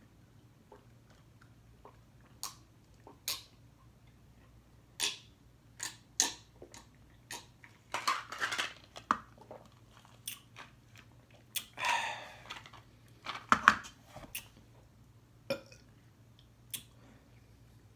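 A person drinking from a small plastic cup of iced drink: scattered clicks of ice against the cup, gulps and crunching. A louder knock comes a little past the middle, as the cup is set down on the wooden table.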